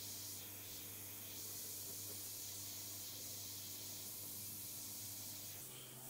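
Iwata airbrush hissing steadily as it sprays fine paint detail, with a low steady hum underneath that steps up slightly in pitch near the end.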